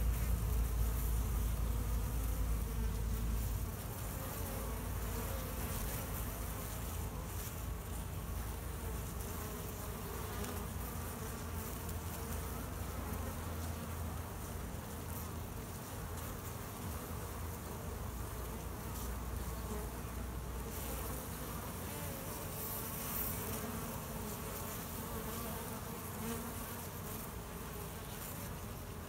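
Honeybees buzzing steadily in a dense, continuous hum of many wings at the hive entrance. A low rumble lies under it, strongest in the first few seconds.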